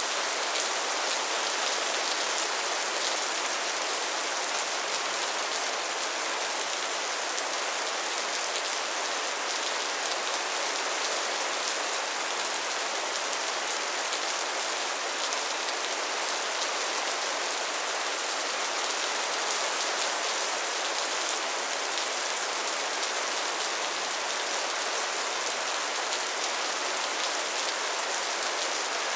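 Steady, gentle rain falling, an even hiss with fine pattering of drops.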